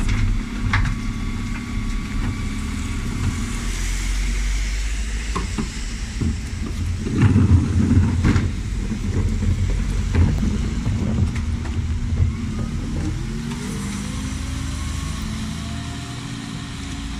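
Dennis Elite 6 bin lorry's diesel engine running as the truck pulls away down the road, with a few clunks about halfway through. Near the end the engine note rises in pitch as it drives off and grows fainter.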